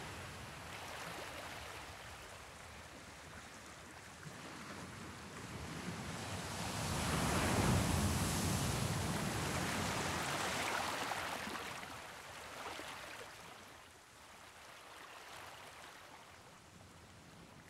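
Wind rushing over the microphone, a steady noise that swells about halfway through and then dies down.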